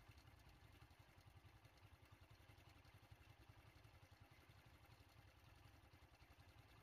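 Near silence, with only a faint, steady low rumble.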